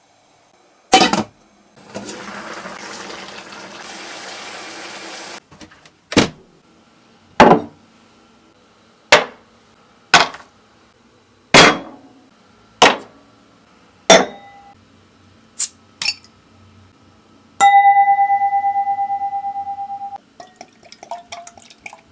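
Kitchen and table handling sounds: a hiss lasting about three seconds, then a string of about nine sharp knocks and clinks of glass and dishes, a ringing tone that fades over about two and a half seconds, and beer pouring into a glass near the end.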